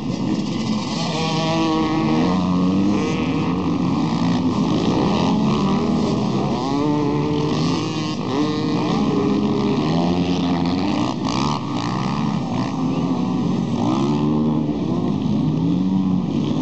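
A pack of off-road motorcycles accelerating away at a race start, many engines revving at once, their pitches rising and falling over one another.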